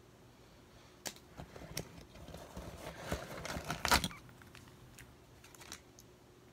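Handling noise from plastic lure packaging being moved about: scattered clicks and crinkling rustles from about a second in, the loudest click just before four seconds, then quiet again.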